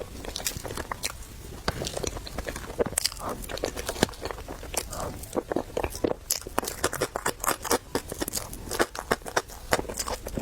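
Close-miked eating: chewing and crunching of food, a dense irregular run of small crackles and wet clicks.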